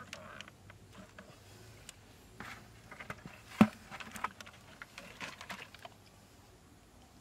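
A knife scraping and cutting a freshly caught fish by hand: irregular clicks and short scrapes, with one sharp knock about halfway through.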